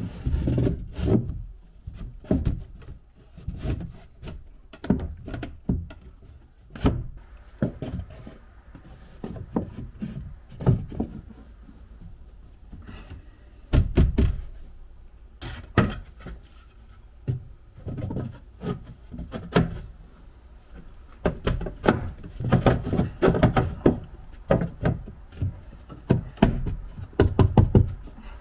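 Irregular knocks and thunks of wooden pieces being handled and fitted into a small plywood cabinet, with a denser run of knocking in the last several seconds.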